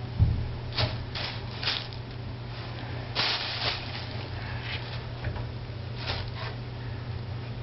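Thin plastic shopping bag crinkling in short rustling bursts, the longest about three seconds in, as a cat hidden under a door gap paws and tugs at it. A dull low bump comes just after the start, over a steady low hum.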